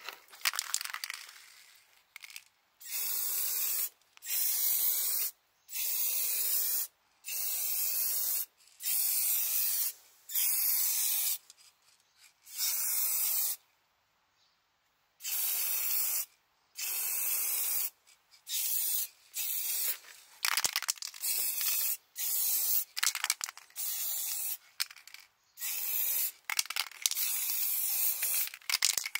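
Aerosol spray can of clear coat hissing in repeated bursts of about a second each, with short breaks between them. About halfway through there is a pause of roughly two seconds, and later the bursts come shorter and choppier.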